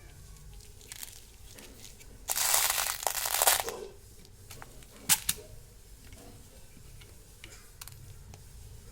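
Candy packet being torn or crinkled for about a second and a half, then a single sharp click.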